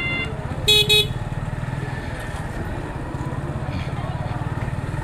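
Motorcycle engine running steadily, with two short blasts of a vehicle horn about a second in. A repeating high electronic beep stops just after the start.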